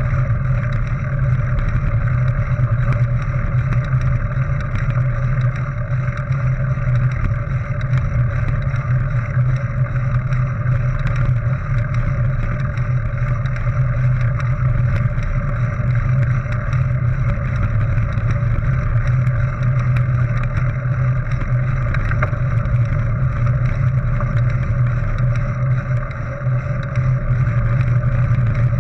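Steady wind and tyre rumble from a mountain bike rolling over a gravel track, heard through a GoPro HERO 3 in its housing, with a brief dip near the end.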